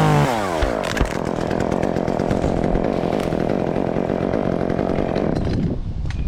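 Chainsaw cutting wood: the engine's pitch drops as the chain bites in, then runs steadily under load and eases off near the end.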